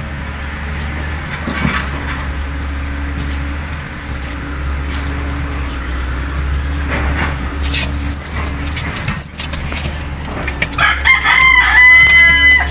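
A rooster crowing once near the end: a few short rising notes, then a longer held one, over a steady low hum.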